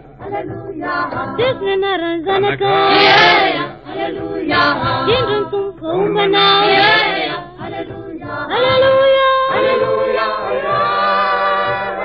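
Church choir singing the Gospel acclamation in harmony, with phrases ending on long held notes.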